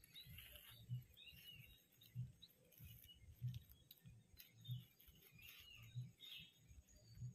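Near silence: faint bird chirps, with a faint low thump repeating evenly about every second and a quarter.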